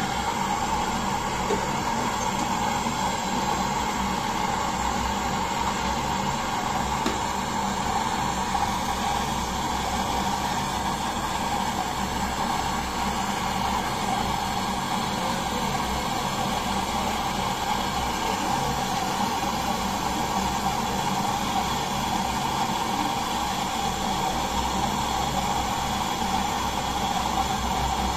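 Handheld gas torch on a canister burning with a steady hissing flame, playing on a copper pipe joint of a refrigerator compressor.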